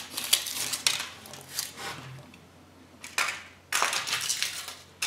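Foil wrapper of a Kinder Surprise chocolate egg being unwrapped and crumpled, crinkling in bursts with a short lull partway through.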